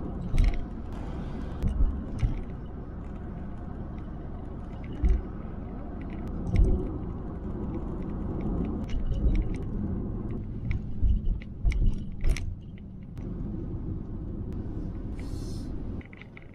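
A car driving on a road, heard from inside the cabin: a steady low road rumble with frequent light clicks and low thumps over it.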